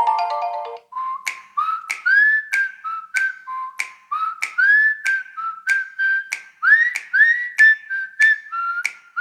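Huawei P50 Pro ringtone: a whistled melody over finger snaps, about two snaps a second. It starts about a second in, just after the last notes of a mallet-percussion ringtone cut off.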